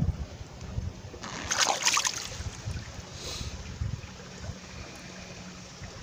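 Mountain creek water running over and around boulders, with a louder burst of noise lasting about a second, roughly a second and a half in.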